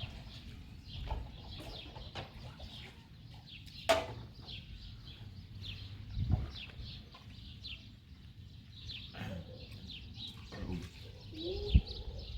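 Small birds chirping over and over in short, high, falling notes, over a low rumble. There is one sharp knock about four seconds in and a short call that bends up and down near the end.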